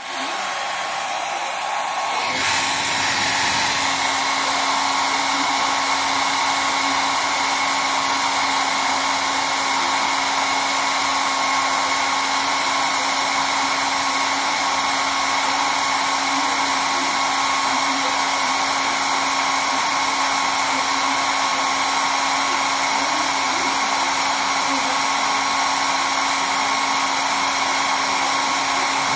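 Small electric blower running steadily, a motor hum with a rush of air, blowing on a wooden whirligig to spin its propeller. It gets louder about two seconds in, then holds steady.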